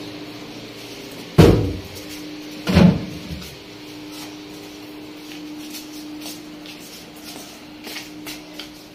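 Two heavy thumps about a second and a half apart, like a wooden door or cupboard being knocked shut, over a steady low hum, with a few light clicks near the end.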